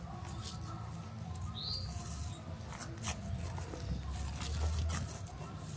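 Scattered crackles and clicks of dry leaves and small twigs being handled, with one short bird chirp about two seconds in over a low rumble.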